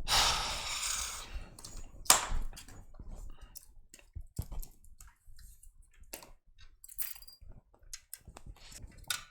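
Scattered clicks and light knocks of things being handled on a workbench, with a breathy hiss in the first second or so and one sharper click about two seconds in.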